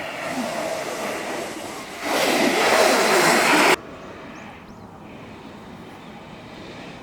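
Steady rolling and rushing noise of a freeboard riding on pavement. It gets louder about two seconds in, then drops off suddenly just past the middle to a lower, steady rush.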